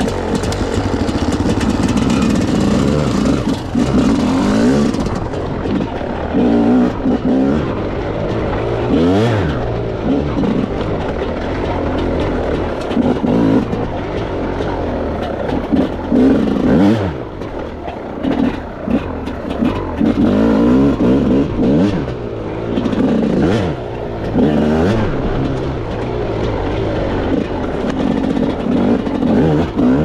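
Enduro dirt bike engine under hard riding, revving up and dropping back again and again as the throttle is opened and closed, with a few sharp dips in pitch.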